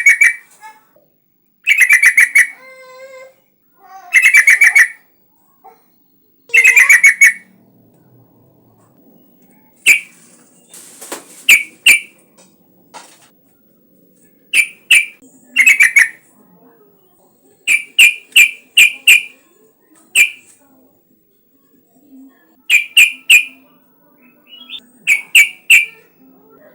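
Yellow-vented bulbul singing. Four fast chattering phrases come about two seconds apart, followed by short, clear notes in quick pairs and threes.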